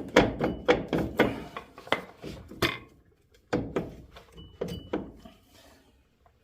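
Irregular metal knocks and clunks from a truck's front suspension as the old strut assembly is wrestled and struck to free it: a quick run of knocks over the first three seconds, then four more spaced out, with a brief faint metallic ring twice.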